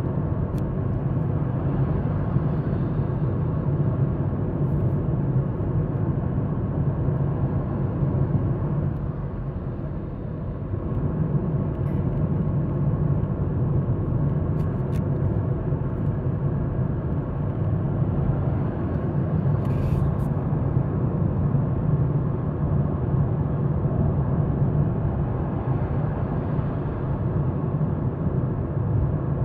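Steady in-cabin road and tyre noise of a Toyota RAV4 Hybrid cruising at about 45 mph, with a low, even drone under it. It eases briefly about ten seconds in, and a few faint ticks and a short hiss come through.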